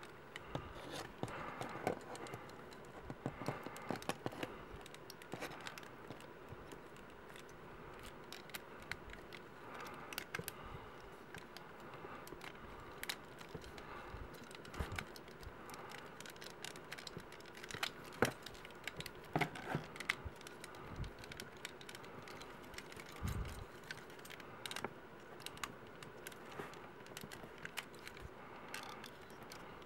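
Small irregular plastic clicks and snaps of a Transformers Energon Starscream action figure's joints and panels being moved by hand during its transformation to jet mode.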